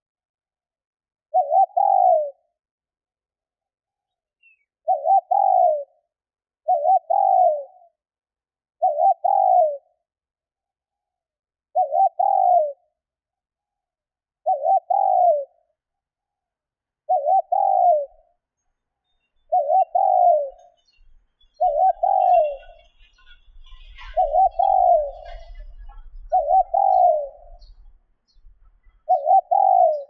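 Female spotted dove cooing: a short call about every two seconds, each one dropping a little in pitch. This is the call that draws males to her.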